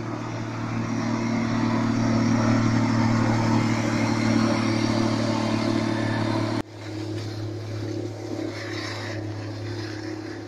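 Diesel engine of a PistenBully PB 240 D snow groomer running steadily, its drone growing louder as the machine comes close. About six and a half seconds in the sound breaks off abruptly and a quieter engine drone carries on.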